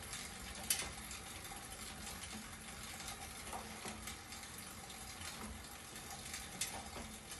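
Schwinn Airdyne fan exercise bike being pedalled: its bladed fan wheel gives a steady rush of air, with a faint hum from the drive. Two sharp clicks come through, one about a second in and one near the end.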